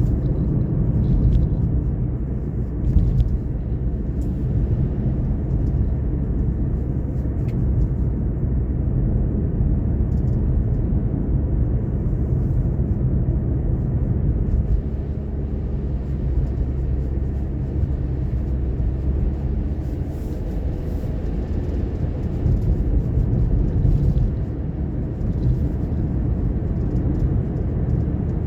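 A car driving at a steady pace: a continuous low rumble of road, tyre and engine noise.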